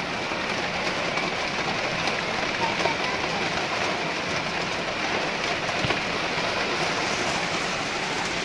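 Steady rain falling: an even, unbroken hiss of rain that holds at the same level throughout.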